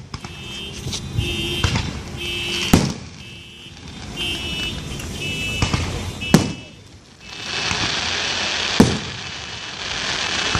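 Consumer fireworks going off: three loud bangs, the first nearly three seconds in and the last near the end, while a car alarm sounds a pulsing, repeating tone through the first half. From about halfway through, a steady hiss of fireworks spraying joins in.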